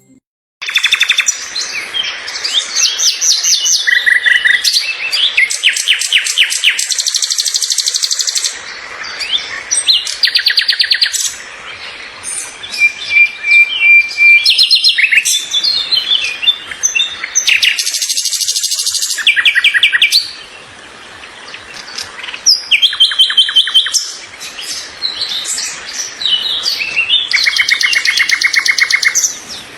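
Songbirds chirping and singing without a break, with several fast rapid-fire trills and a short steady whistled note near the middle.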